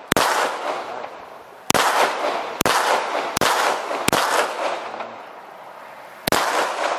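Six gunshots at uneven spacing: one right at the start, four more about a second apart starting near 1.7 s, and a last one near the end. Each crack trails off in a short echo.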